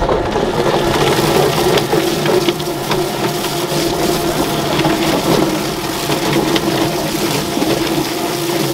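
Drum-type chicken plucker running: its electric motor hums steadily while scalded chickens tumble and slap against the spinning rubber plucking fingers. A garden hose sprays water into the drum.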